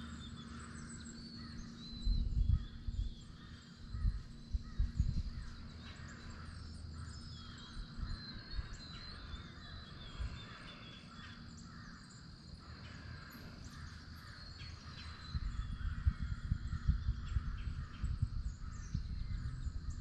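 Crows cawing over quiet woodland ambience, with bursts of low rumble on the microphone about two seconds in, again around four to five seconds, and through the last few seconds.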